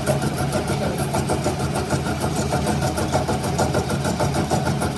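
Machinery running steadily, a constant low hum with a fast, even ticking over it.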